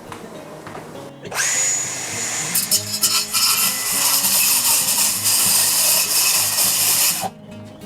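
Power saw starting about a second in, its motor whining up to speed, then cutting for about six seconds before stopping abruptly.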